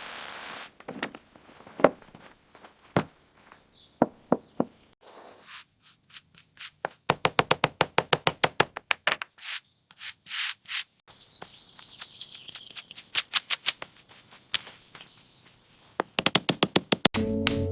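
Hand tools working on stone: scattered sharp taps, then runs of rapid taps at about six a second, with scraping between them. Music comes in near the end.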